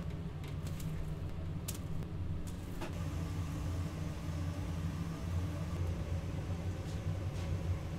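A steady low machine hum with a few light clicks in the first three seconds.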